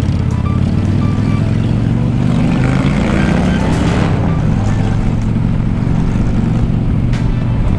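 Motorcycle engine pulling away from a stop, its pitch rising as it accelerates about two seconds in, then running steadily as the bike rides on.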